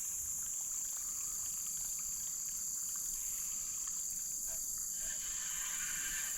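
Steady, high-pitched drone of an insect chorus along a creek, with faint light ticks beneath it.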